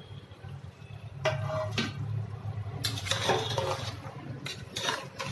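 A spoon scraping and knocking against the inside of a pressure cooker pot while stirring thick chicken masala, in several separate strokes.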